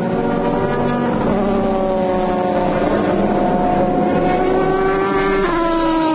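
Ferrari 550 Maranello GT race car's V12 engine running at speed as the car drives past. Its note sinks slowly, then drops sharply about five and a half seconds in as the car goes by.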